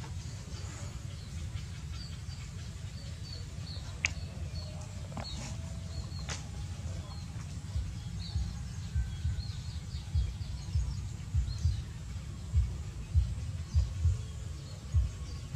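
Faint, short bird chirps scattered through the background over a low rumble. The rumble turns into strong irregular low thumps in the second half, and these are the loudest sound. Two sharp clicks come about four and six seconds in.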